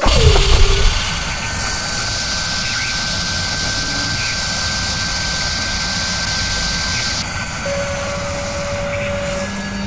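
Steady, loud mechanical rushing noise with a thin high whine, like a jet or big machine running, opening with a loud burst that sweeps down in pitch.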